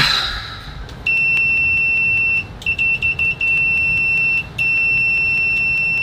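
SUETTLA S11 smart multimeter's continuity buzzer giving a loud, steady, high-pitched beep as its test leads are shorted together. About a second and a half after it starts it stutters into a few short chirps, and it drops out briefly once more before sounding steadily again.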